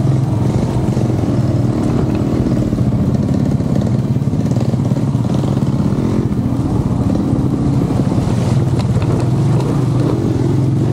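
Motorcycle engine running steadily at an even, low pitch, heard from on the bike.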